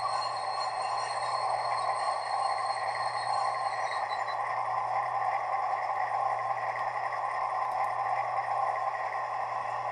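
Model locomotive sound decoder playing a V160 diesel engine sound (Doehler & Haass sound project) through the small speaker of a Brawa V320 model: a steady diesel running sound while the model stands still. A thin high whine in it fades out about four seconds in.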